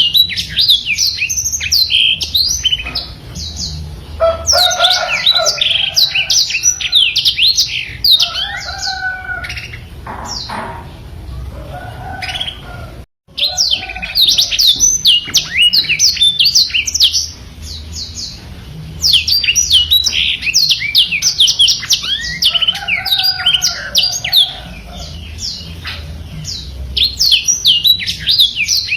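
Black-throated canary (blackthroat) singing a long, fast, unbroken song of rapid falling high notes, mixed with lower warbled phrases. The song cuts out for an instant about halfway through.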